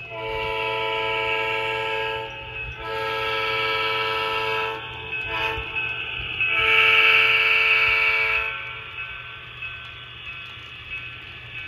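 Multi-chime diesel air horn from the sound decoder of an HO scale EMD SDP35 model locomotive, blown in the grade-crossing pattern: long, long, short, long. A steady low hum runs underneath.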